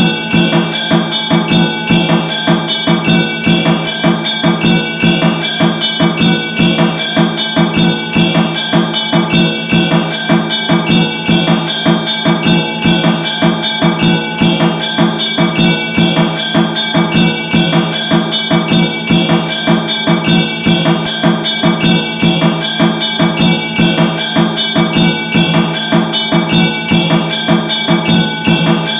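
Temple bell rung rapidly and without a break, several strikes a second, its ringing tones sustaining steadily under the clangs.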